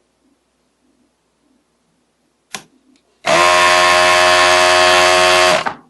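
S-993A electric desoldering gun's built-in vacuum pump. A click comes about two and a half seconds in, then the pump buzzes loudly and steadily for about two and a half seconds and cuts off.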